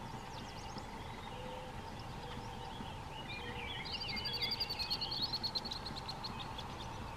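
A songbird sings one song, a few quick varied notes that run into a fast high trill, about three seconds in. A steady faint hum and outdoor background noise run under it.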